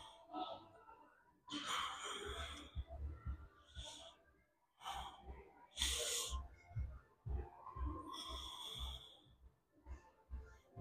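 A man breathing hard through the reps of bodyweight back extensions on a hyperextension bench, with about four long, hissing exhales.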